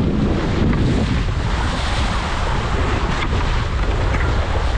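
Strong wind buffeting the microphone over the steady rush and splash of choppy water against a sailing catamaran's hulls.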